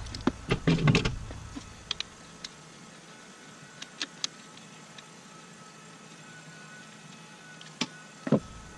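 Sparse sharp clicks and light knocks from hands working the plastic wiring connector on a car alternator: a quick cluster in the first second, then a few single clicks, two of them close together near the end.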